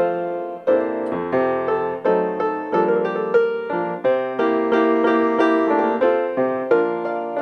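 Piano music: a solo piano playing a brisk, rhythmic accompaniment of struck chords and notes.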